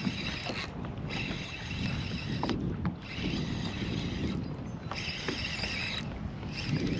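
Fishing reel cranked in spurts of about a second with short pauses while a hooked striped bass is played on a bent rod. Water lapping at a kayak and wind on the microphone underneath.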